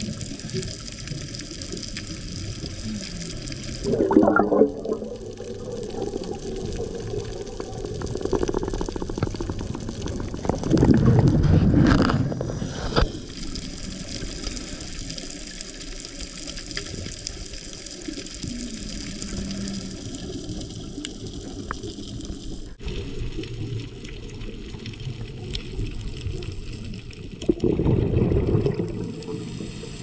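Underwater sound picked up by a scuba diver's camera: a steady hiss with three louder gushes of bubbling, about four, eleven and twenty-eight seconds in, as the diver exhales through the regulator.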